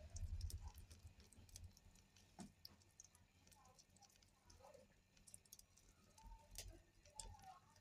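Near silence with faint scattered clicks and soft pats: sticky flour-vada dough being pressed and shaped between wet hands.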